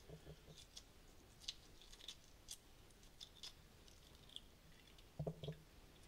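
Faint crackling and clicking of cracked eggshell being peeled off a hard-boiled egg under water, with small wet squishes. A couple of short, lower sounds come near the end.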